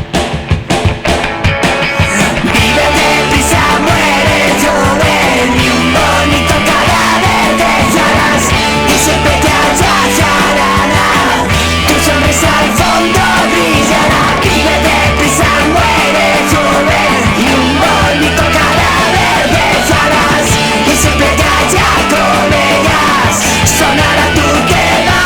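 Loud rock band music with a steady beat. About two seconds in, a short stretch of separate hits gives way to the full band playing on.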